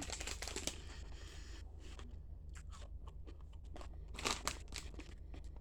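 Close-up crunching and chewing of caramel-coated popcorn: a dense run of small crisp crunches, with a louder flurry right at the start and another about four seconds in.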